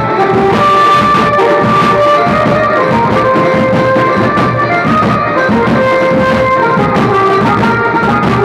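Loud procession band music through horn loudspeakers: a melody in long held notes over steady drumming.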